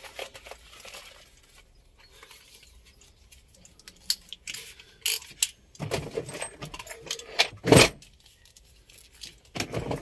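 Metal tools and hardware clinking and rattling as they are handled in a plastic toolbox. The clatter is light at first, then busier and louder with a sharp knock about three-quarters of the way through.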